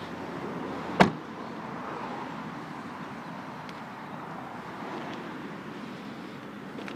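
A car door slams shut once about a second in, a single sharp thud over a steady background noise.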